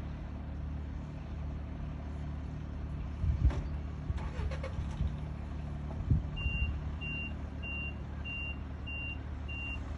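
Riding rice transplanter's engine running steadily, with a couple of thumps. A bit over six seconds in, a warning beeper starts: short high beeps about every two-thirds of a second.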